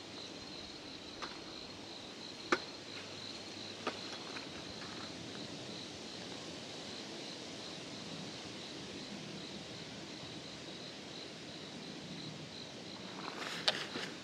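A cricket chirping in a steady, even pulse, a few chirps a second, over faint outdoor hiss. Three sharp clicks come in the first four seconds, and a short run of clicks and crackling near the end.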